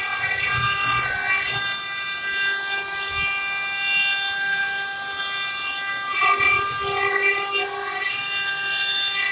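Multi-spindle CNC stone-carving machine running, its spindles giving a steady high whine of several held tones with a hiss above, the pitches shifting a little about six seconds in.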